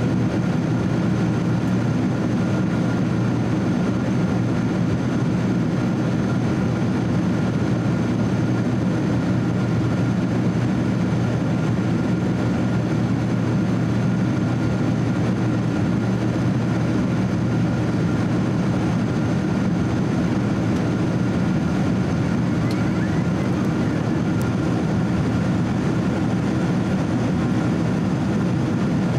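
Steady cabin noise of a Boeing 767-300 jetliner in flight, heard inside the cabin by the wing: a constant low rush of airflow and turbofan drone with a faint, steady high engine whine.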